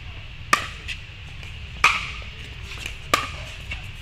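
Pickleball paddles hitting a hollow plastic pickleball in a rally: three sharp pocks about 1.3 seconds apart, with fainter taps between them.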